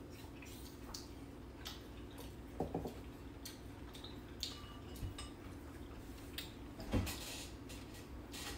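Light scattered clinks and taps of chopsticks and spoons against ceramic bowls and dishes at a meal, over a faint steady hum. A louder knock comes about seven seconds in.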